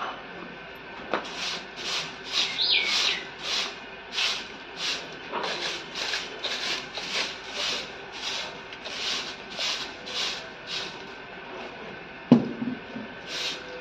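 Stiff stick broom sweeping a concrete yard, about two brisk strokes a second, which stop about eleven seconds in. A single sharp knock near the end is the loudest sound.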